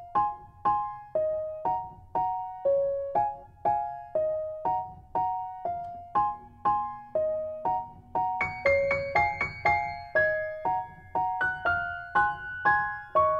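Gentle background piano music: a slow melody of single struck notes, about two a second, joined by higher notes about eight and a half seconds in.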